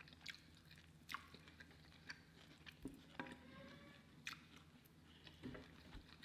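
Faint close-up chewing of mouthfuls of a rice, bean and steak burrito bowl, with scattered sharp clicks over a low steady room hum.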